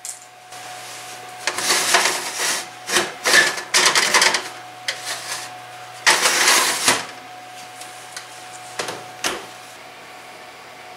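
Metal clattering and scraping of an oven rack and baking sheet being handled and slid back into the oven, in several bursts, with a short knock a little after nine seconds.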